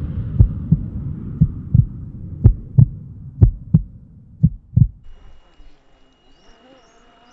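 Intro sound effect of a heartbeat: deep thumps, mostly in pairs about a second apart, over a low drone that fades away. The beats stop about five seconds in, leaving only a faint background with a few chirps.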